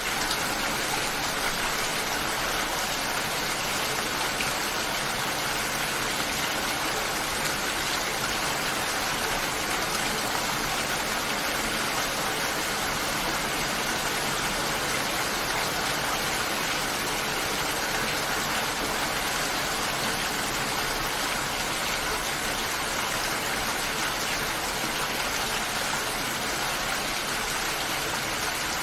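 Steady rain falling, an even, continuous hiss with no single drops or other sounds standing out.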